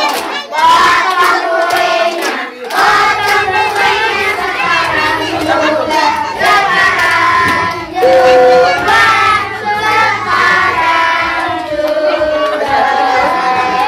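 A group of people singing together, with hand clapping.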